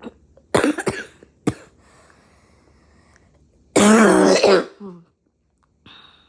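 A person's coughing fit: a quick cluster of sharp coughs about half a second in and another single cough at about a second and a half. Near four seconds comes a longer, louder voiced throat-clearing.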